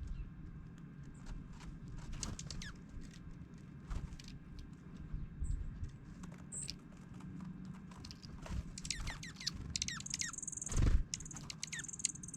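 Dark-eyed juncos giving short, high falling chip and twitter notes among many small taps and clicks, with a high buzzing trill near the end. A single thump comes about eleven seconds in.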